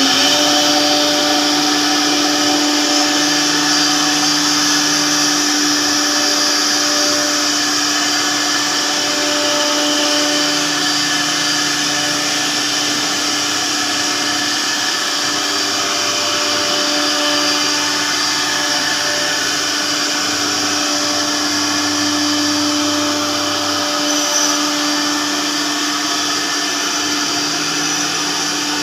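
CNC router spindle running steadily while machining a WPC (wood-plastic composite) door panel: one constant pitched tone over a haze of cutting noise, with lower hums that come and go every few seconds as the machine moves.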